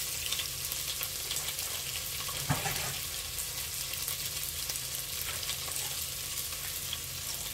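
Oil sizzling steadily in a frying pan on the stove, with a short knock from a utensil about two and a half seconds in.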